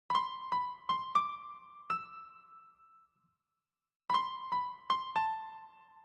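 Background music: a soft keyboard melody in a piano or electric-piano tone, played as two short phrases of about five notes each, with a pause of about a second between them.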